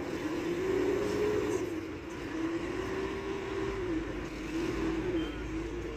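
Mobile crane's diesel engine running and revving up and down in three long swells as it hoists a wrecked truck, with a low rumble growing in the second half.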